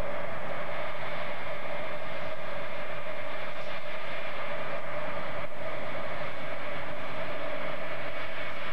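Turbofan engines of a Boeing C-135-family Air Force jet running as it taxis: a loud, even rush of jet noise with steady whining tones through it.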